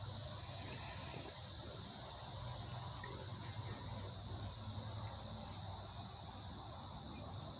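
Steady, high-pitched insect chorus that runs on without a break, with a faint low hum beneath it.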